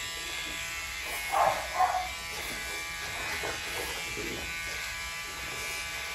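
A cordless pet nail grinder buzzing steadily while a French Bulldog's nails are ground. About a second and a half in, the dog gives two short cries close together.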